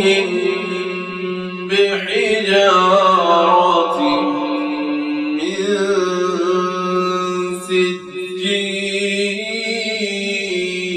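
A single voice reciting the Quran in a slow, melodic chant, holding long drawn-out notes that bend and waver in pitch. There is a short break for breath a little before 8 seconds in.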